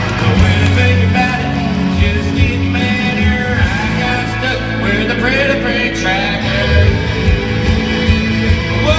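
Live country-style song: a man singing at times over his own electric guitar, strummed and amplified through a concert sound system.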